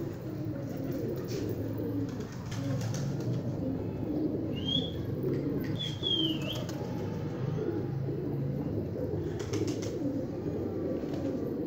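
Several domestic pigeons cooing steadily, their low coos overlapping without a break. About halfway through come a couple of short high chirps.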